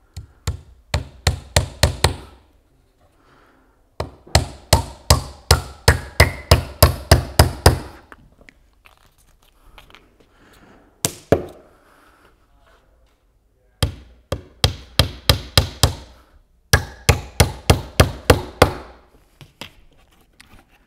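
Hammer driving nails into the wooden frame of a beehive floor: four runs of quick, sharp strikes at about four a second, with a single blow between the second and third runs.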